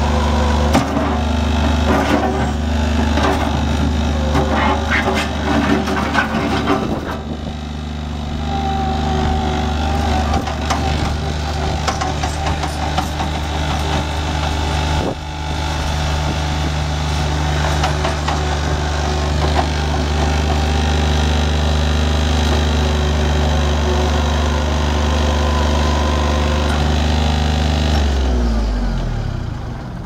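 Kubota diesel engine of a 2004 Bobcat 463 skid steer running steadily as the machine drives and maneuvers, with rattles in the first several seconds. Near the end the engine is shut off and winds down to a stop.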